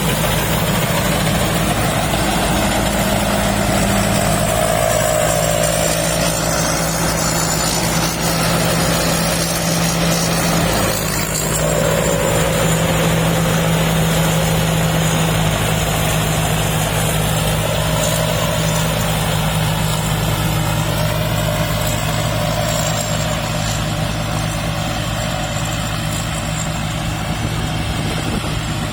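Rice combine harvester's engine running steadily, with a higher whine that slowly rises and falls above it.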